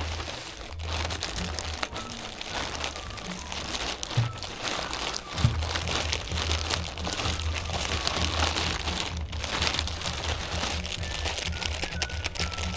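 Package wrapping crinkling and rustling as it is torn open and handled, over background music with a steady low beat.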